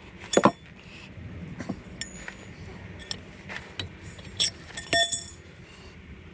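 Metal hand tools clinking and knocking as a wrench is fitted to a tight brake bolt for leverage: a string of sharp clinks with brief ringing, the loudest about half a second in and a cluster around five seconds in.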